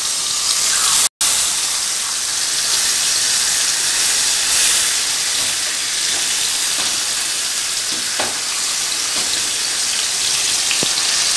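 Marinated chicken pieces sizzling steadily in hot oil in a thick kadai. The sound cuts out for a moment about a second in. Near the end there are a couple of faint taps of metal tongs against the pan.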